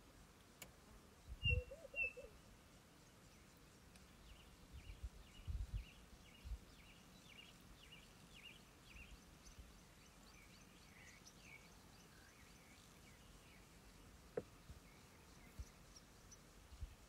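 Faint bush ambience with a bird calling in a long run of short chirps, and a few low thumps along the way.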